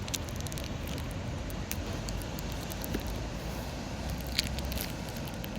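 Steady rushing outdoor noise of wind and sea on the coast, with scattered light crackles and clicks.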